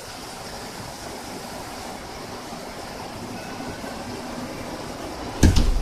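A steady rushing noise, with one loud thump about five and a half seconds in.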